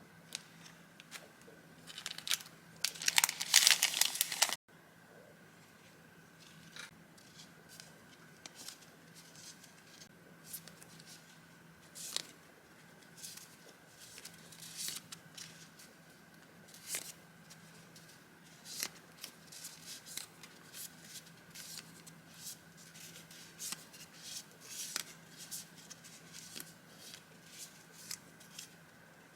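Paper and packaging handled up close: a loud crinkling, tearing rustle a few seconds in that stops abruptly, then light paper rustles, taps and slides as sheets and stickers are sorted.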